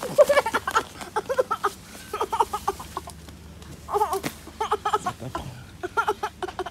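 A boy laughing hard, in repeated bursts of quick, high-pitched 'ha' sounds.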